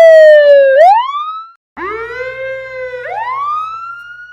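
Police car siren wailing: a falling tone that swoops back up and is cut off about a second and a half in. After a brief silence, a second siren starts low over a faint low rumble and rises slowly.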